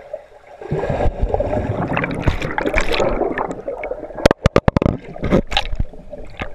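Pool water heard underwater through a GoPro: muffled churning and bubbling, with a quick run of sharp clicks a little past the middle.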